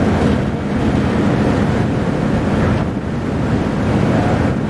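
Wind blowing across the microphone over the steady low drone of the MV Mayne Queen ferry's diesel engines, with propeller wash churning in the wake as she gets under way.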